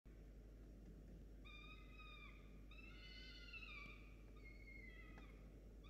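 Peregrine falcon chick begging for food: three drawn-out cries of about a second each, faint, over a steady hiss.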